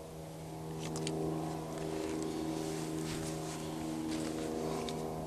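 Steady engine drone of a plane passing over at a distance, an even hum holding one pitch.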